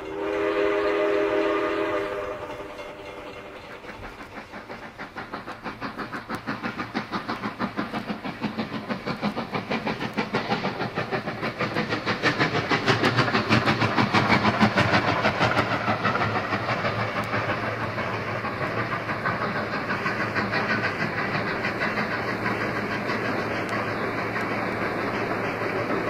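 Steam locomotive whistle sounding a chord for about two seconds, followed by the engine's rhythmic exhaust chuffing as it gets under way, the beats quickening and growing louder, then running steadily.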